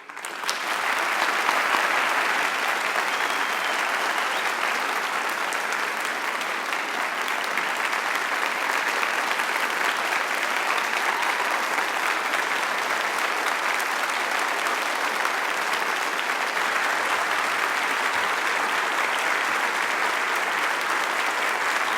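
Sustained applause from a large assembly crowd, starting right after a speech ends and holding steady for about twenty seconds.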